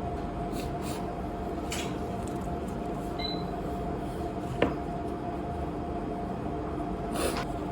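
Steady indoor room hum with a constant low tone, and one sharp click or clink a little past halfway, with a few brief rustles.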